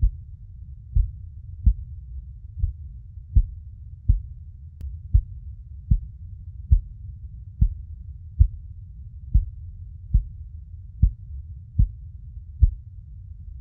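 Steady heartbeat sound: deep, muffled thumps about every 0.8 seconds over a constant low rumble.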